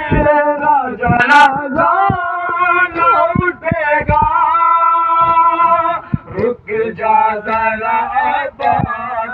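A man chanting a noha, a Shia mourning lament, solo into a handheld microphone in long, wavering held notes, with a few short low thumps scattered underneath.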